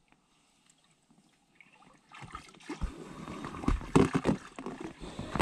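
Kayak paddle strokes starting about two seconds in: the paddle blades dipping and splashing, with water trickling off the paddle and a few sharp knocks.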